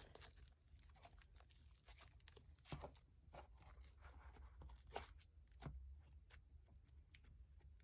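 Faint, scattered sticky crackles and small clicks of a soft, squishy slime being handled by hand.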